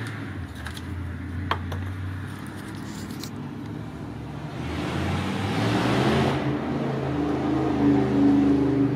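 A motor vehicle going by, its engine hum joined by road noise that swells about halfway through, with a louder engine note near the end.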